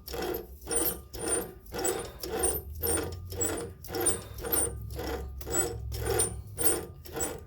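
Metal lathe being wound over by hand while single-point cutting a thread: a regular mechanical clicking, about two strokes a second.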